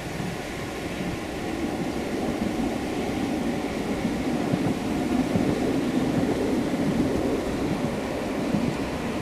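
Articulated tram running past on its rails, a steady noise that grows louder toward the middle and eases off a little near the end.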